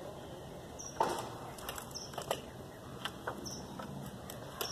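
Scattered knocks and clicks as a wooden fence board and tools are handled, the sharpest knock about a second in. A bird's short high chirp repeats every second or so.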